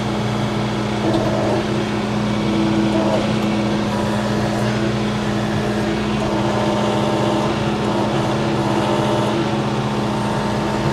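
John Deere 4066R compact tractor's four-cylinder diesel engine running steadily under load. Higher whining tones come and go as the loader and grapple hydraulics are worked.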